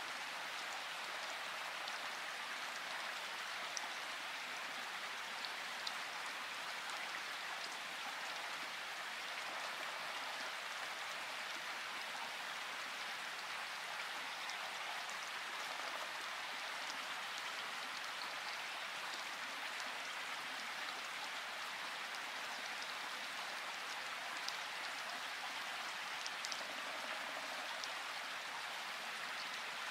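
Light rain falling steadily: an even hiss with scattered small drop ticks.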